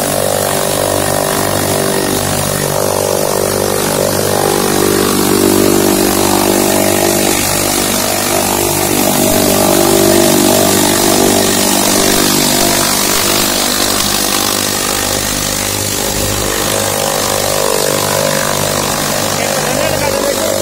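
Tractor engine running steadily under load, driving a PTO chaff cutter that chops dry fodder stalks as they are fed in. The level swells slightly a few times.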